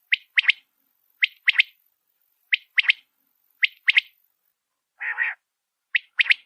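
Wild quail calling: a three-note phrase, one short note then a quick double note, repeated about every second and a quarter. About five seconds in there is one longer, harsher note.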